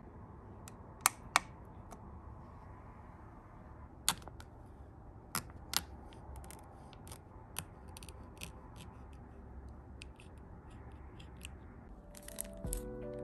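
Scattered sharp clicks and taps of long fingernails and small nail-art pieces being handled on a wooden table, two loud clicks about a second in, then smaller ticks, over a low steady hiss; background music comes back in near the end.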